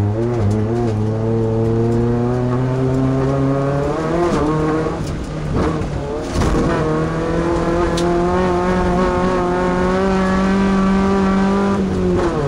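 Class 2 off-road race truck's engine running hard under acceleration. Its pitch climbs steadily, falls back about four seconds in, climbs again, and falls back once more near the end.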